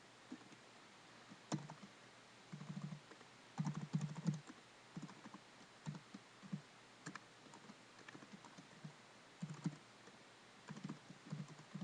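Computer keyboard being typed on in short irregular bursts of keystrokes with brief pauses between them.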